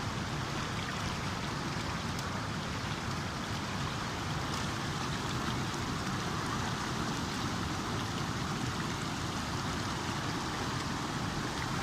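Stream water flowing and gurgling steadily.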